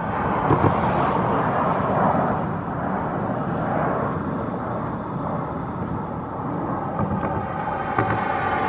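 Jet airliner engines: a loud, steady rushing noise that starts abruptly and holds throughout, with a few low thumps of wind on the microphone.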